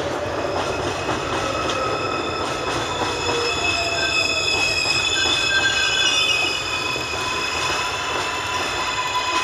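R142A subway train moving along the platform, its wheels squealing in several steady high-pitched tones over the rumble and rattle of the cars.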